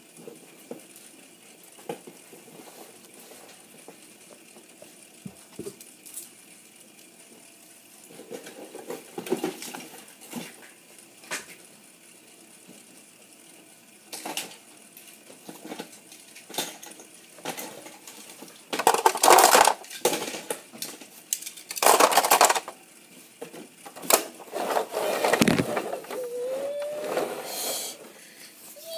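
Small plastic toys and doll accessories being handled, with scattered clicks and knocks throughout and a stretch of louder rattling and scraping about two-thirds of the way through. A brief squeak comes near the end.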